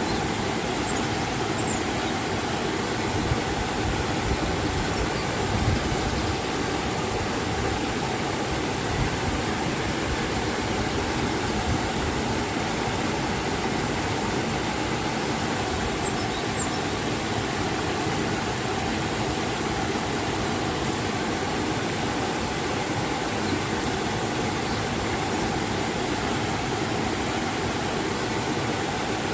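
River and waterfall water rushing, a steady unbroken noise across the whole range, with a few faint short high chirps.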